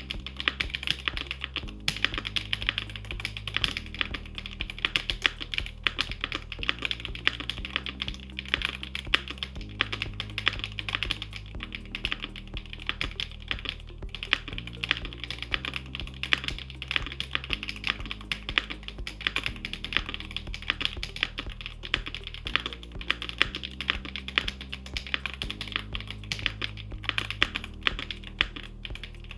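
Continuous fast typing on an ROG Azoth Extreme mechanical keyboard with Kailh BCP switches on a carbon fibre plate, a dense run of key clacks that the uploader finds muted and a bit hollow. Soft background music with a slow-changing bass line plays underneath.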